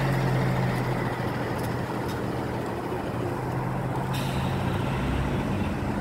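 NefAZ 5299 city bus pulling away from a stop, its engine running with a steady low hum that weakens as the bus moves off.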